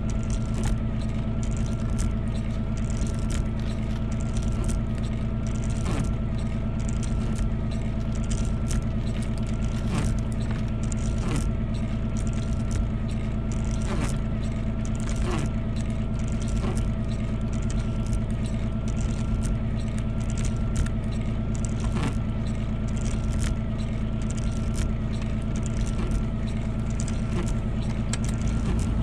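Vehicle engine running steadily, with a higher whine that wavers up and down in a regular cycle and occasional short knocks.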